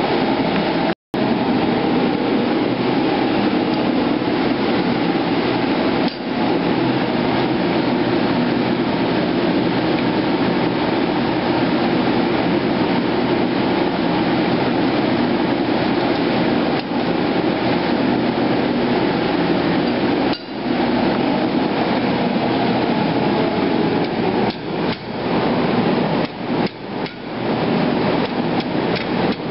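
A forge running with a steady roar, then from near the end a hand hammer striking red-hot steel on an anvil in uneven blows, about two a second, as the machete's integral socket handle is forged around.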